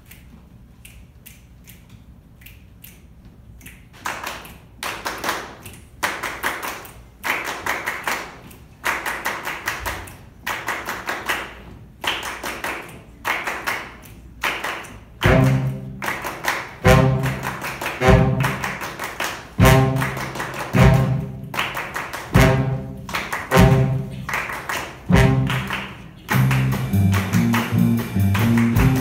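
Student jazz big band playing: soft percussion taps, then a drum groove entering about four seconds in, joined from about halfway by loud accented band hits about every second and a half. The full band, horns included, comes in near the end.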